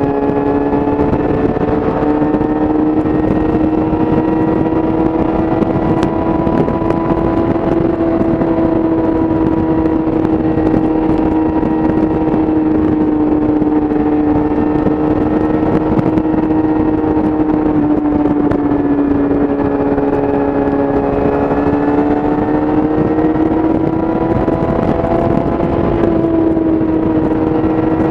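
Yamaha YZF-R6's inline-four engine through an Akrapovic exhaust, running at a steady high cruising speed, its pitch rising a little near the start and again a few seconds before the end and easing off midway, with steady wind noise over the microphone.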